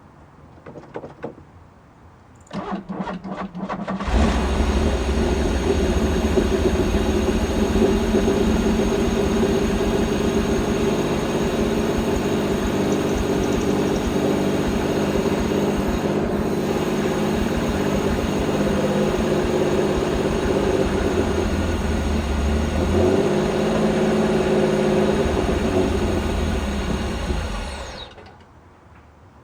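Pontiac Fiero engine being started after sitting: a couple of clicks, then the starter cranking it over in quick strokes, and from about four seconds in a loud steady engine sound that cuts off shortly before the end. The owner reckons the car needs fresh gas after standing a while.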